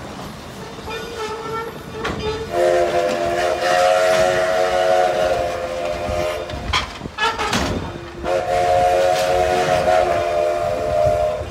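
Steam whistle of a 1925 Alco 2-6-2 logging locomotive sounding two long blasts, each a chord of several pitches: the first starts about two and a half seconds in, the second about eight seconds in. Between the blasts, passenger cars rumble and clack past on the rails.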